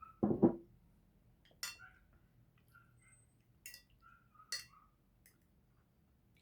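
Eating at a table: a fork clinks sharply against a plate or cup three times, between faint wet mouth sounds of chewing. A short low thump, the loudest sound, comes just after the start.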